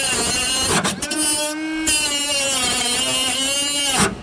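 Cordless compact cut-off tool with a small abrasive wheel cutting through a rusted steel fender bolt: a steady high whine with a grinding hiss, its pitch wavering slightly. It cuts off just before the end.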